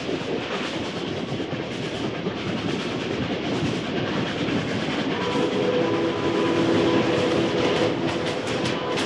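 Steam train running, a dense steady clatter with a pulsing chuff. About halfway through, a steady tone of several pitches joins and holds.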